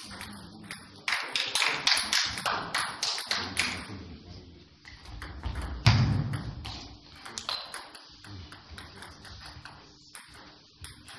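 Table tennis rally: the ball clicking against the bats and the table in quick succession, densest in the first few seconds. About six seconds in there is a heavy thump, followed by scattered clicks.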